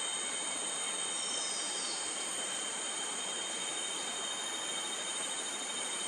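Steady drone of forest insects: a continuous high whine over an even hiss, unchanging throughout. About a second in, a faint short whistle falls in pitch.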